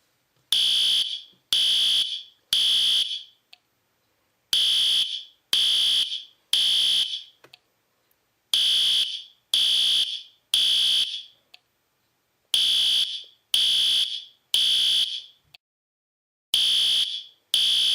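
Fire alarm beeping a shrill tone in groups of three, repeated every four seconds: the temporal-three pattern that signals evacuation. Four full groups sound, and a fifth begins near the end.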